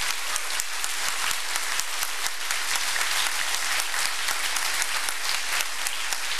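Audience applauding: many people clapping at once, steadily.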